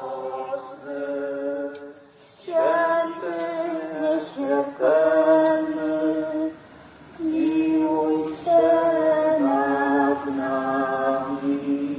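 Pilgrims singing a slow religious song without instruments, in phrases of long held notes separated by short pauses.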